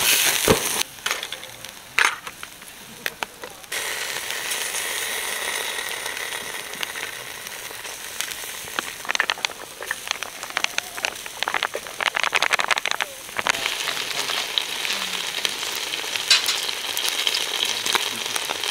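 Scallops in their shells sizzling and bubbling over a high-heat camping burner, with a steady hiss and many small crackles and pops.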